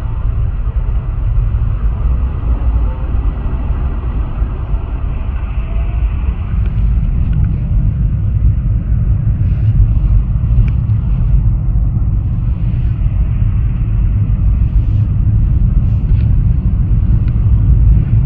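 Automatic car wash machinery, heard from inside the car's cabin: a loud, steady rumble that grows slowly louder, with a few faint ticks toward the second half.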